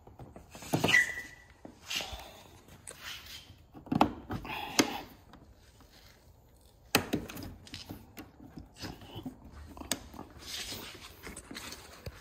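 Hands working a plastic car trim panel: scattered knocks and rubbing, a short squeak about a second in, and a few sharp clicks.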